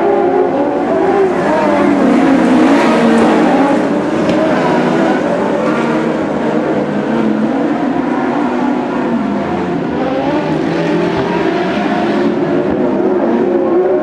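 A pack of Lightning Sprints, small winged dirt-track sprint cars, racing just after the start of a heat. Several engines are running at high revs together, their pitches rising and falling as the cars accelerate and back off.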